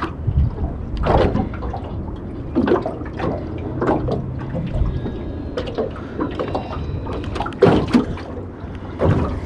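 Small waves lapping and slapping against the hull of a small boat, in irregular splashes every second or two, over a steady low rumble of wind on the microphone.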